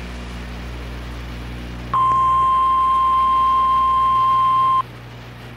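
NOAA Weather Radio 1050 Hz warning alarm tone: a single steady high beep, about three seconds long, coming in about two seconds in and cutting off sharply. It is the alert that precedes a watch or warning broadcast. Before it there is only the radio's steady low hum.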